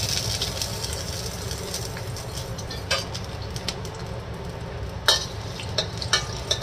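Minced garlic sizzling in hot cooking oil in a wok, a steady hiss throughout. A spatula knocks against the wok a few times in the second half as the garlic is stirred.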